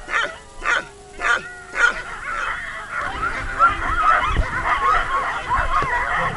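Harnessed sled dogs (huskies) barking and yelping eagerly to go, at first in single yelps about every half second. From about three seconds in they become a dense chorus of yips and whines over a low rumble as the sled moves off over the snow.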